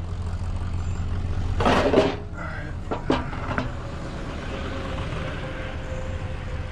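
Truck engine idling with a low steady hum, a brief rushing noise about two seconds in, then two sharp clicks about half a second apart.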